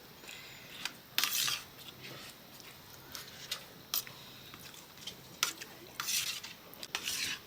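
Scattered clinks and short scrapes of dishes and metal utensils, a few sharp ticks between them and louder scraping passes about a second in and again near the end.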